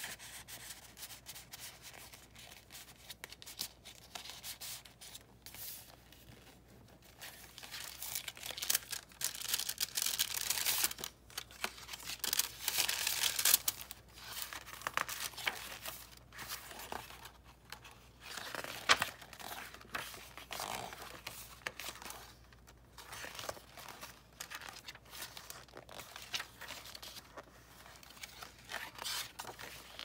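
Paper rustling and crinkling as the scrapbook-paper and paper-bag pages of a handmade junk journal are turned and handled, with soft taps, louder for a few seconds in the middle.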